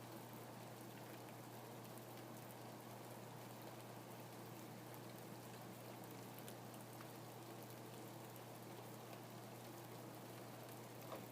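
Steady, soft rain falling, with scattered individual drops ticking through it and one slightly louder drop near the end. A faint steady low hum sits underneath.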